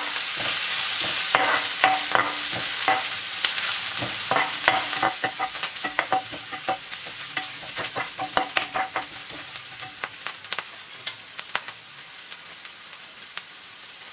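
Chopped garlic, ginger and green chillies sizzling in hot oil in a metal frying pan, with a metal spoon scraping and clinking against the pan as they are stirred. The clinks thin out a few seconds before the end, and the sizzle gradually dies down.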